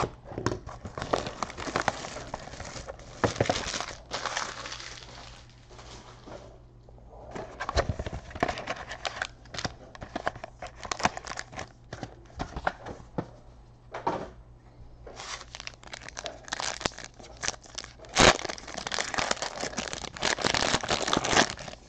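Trading-card packaging being opened by hand: a cardboard hobby box and its foil card packs crinkling and tearing in irregular bursts, with a sharp snap about eighteen seconds in.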